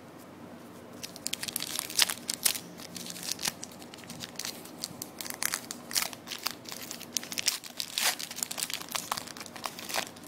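Crinkling and tearing of a hockey card pack's wrapper as it is torn open by hand, with many sharp crackles.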